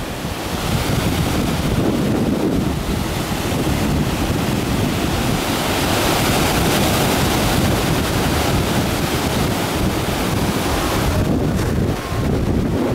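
Ocean surf breaking and washing in a continuous rushing hiss, with wind buffeting the microphone underneath; the hiss is strongest midway and eases a little near the end.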